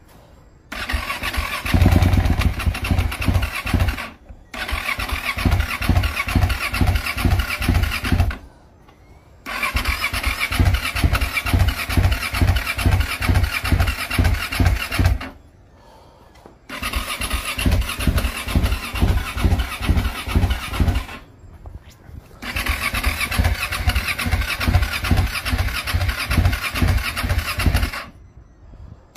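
KTM motorcycle engine being cranked over by its starter in five spells of several seconds each, with short pauses between. It turns over in a fast, even pulsing rhythm, struggling to crank and never catching.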